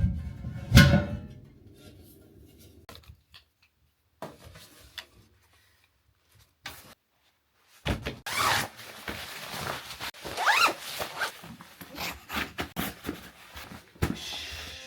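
A sharp knock about a second in, then, after a near-silent stretch, uneven rustling and handling noise with a zipper being pulled.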